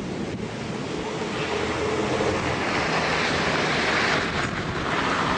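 Strong wind rushing over a camcorder microphone: a steady, noisy rush that grows louder over the first couple of seconds, with a brief dip near the end.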